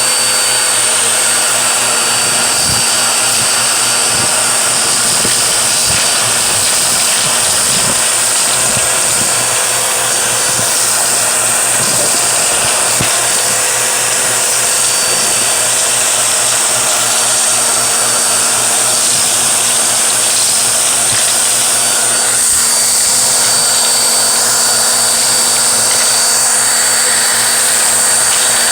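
Vacuum cleaner running steadily at full power, a loud even whir with a high hiss, with scattered clicks in the first half.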